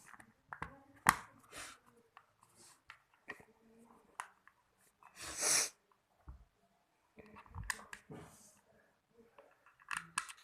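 Scattered clicks and knocks of small plastic parts being handled and fitted together while reassembling an electric mosquito-swatter bat, with a short hissing burst about five seconds in.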